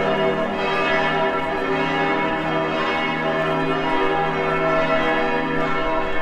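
Bells ringing, many overlapping tones sounding together at an even level.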